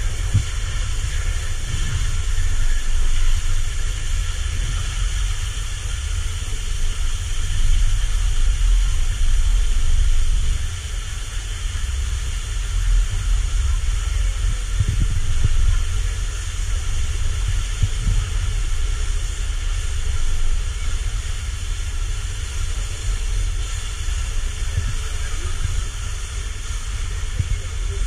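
Wind buffeting the microphone on a moving chairlift: a steady, uneven low rumble with a hiss above it.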